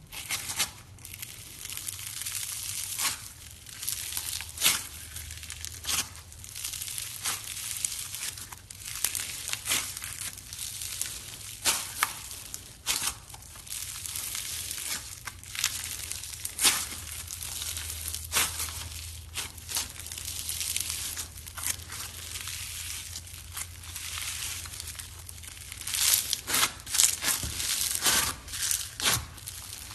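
Floam, slime packed with small foam beads, being squeezed and pressed, the beads crackling and popping in a continuous crunchy stream with irregular sharper pops. The pops come faster and louder near the end.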